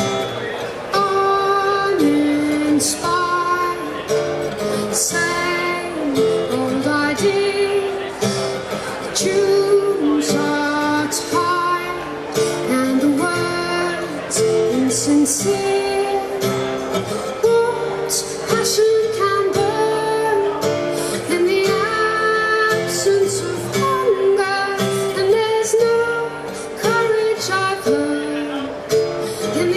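A woman singing live to strummed acoustic guitar.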